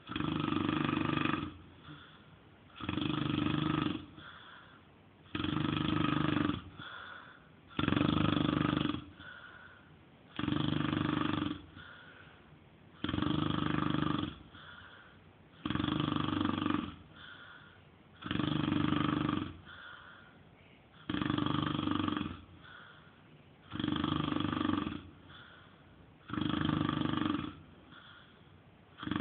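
A man snoring in a steady rhythm: a long snore about every two and a half seconds, with a quieter breath between snores.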